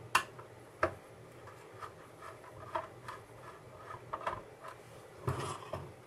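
Hand screwdriver turning machine-threaded screws out of a variable-frequency drive's case: small scraping ticks and clicks, with two sharper clicks in the first second and a brief busier patch of scraping near the end.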